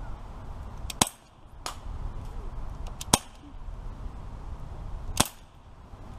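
Daisy Powerline 426 CO2 BB pistol firing three sharp shots about two seconds apart, with fainter ticks between them.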